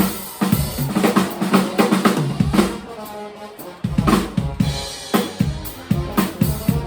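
Live band playing, with the drum kit to the fore: regular kick and snare hits over bass and other pitched instruments. The beat thins out for about a second around the middle, then the full drums come back in.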